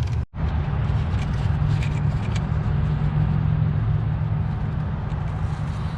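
Steady low rumble of an idling engine, broken by a short gap about a third of a second in.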